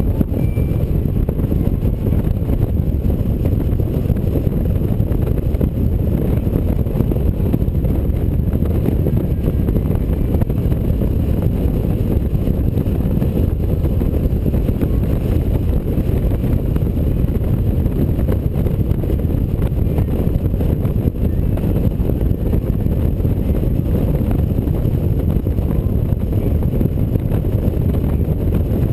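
Steady wind rush and road noise from a touring motorcycle cruising at road speed, with wind buffeting the microphone.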